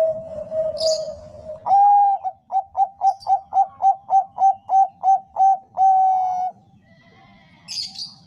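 Zebra dove (Bangkok-bred perkutut) singing its coo: a held low note, then a higher note, a quick run of about a dozen short evenly spaced coos at about three a second, and a final drawn-out note. Brief high chirps come at about a second in and near the end.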